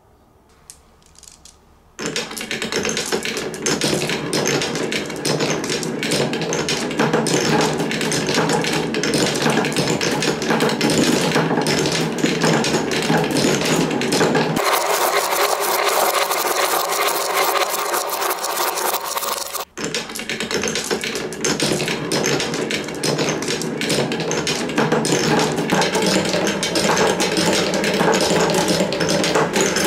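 Many glass marbles rolling and clattering through a Quadrilla marble run's wooden rails and plastic spirals, a dense rattle of clicks that starts about two seconds in after a few single clicks, with a brief break near the 20-second mark.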